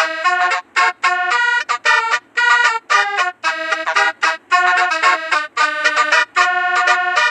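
Basuri telolet horn, a 36-note multi-trumpet bus horn, playing a fast tune of short, clipped notes one after another.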